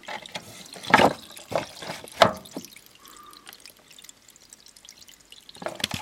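Water sloshing and splashing in a shallow plastic tray as it is scooped out, with two louder splashes about a second and two seconds in, then quieter dribbling. It is the standing water being drained from a washing machine's filter opening.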